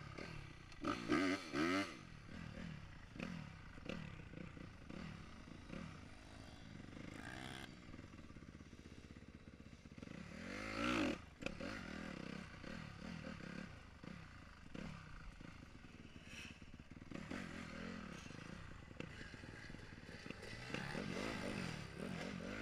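Dirt bike engine heard from the rider's helmet, revving up and down as the rider works the throttle, with sharp throttle surges about a second in and again about eleven seconds in.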